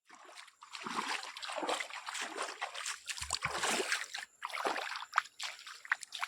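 Water splashing and sloshing irregularly, with small drips and ticks.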